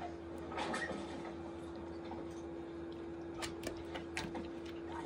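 Light clicks and taps of hands handling food on a baking pan: a cluster of taps just under a second in and several sharp ticks a little past halfway, over a steady hum.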